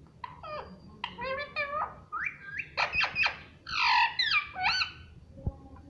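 Indian ringneck parrot chattering and squawking: a quick run of shrill calls that glide up and down in pitch, loudest about four seconds in.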